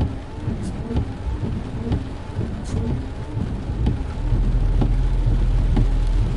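Steady rain with scattered patters of drops. About four seconds in a deep, louder rumble joins it and holds.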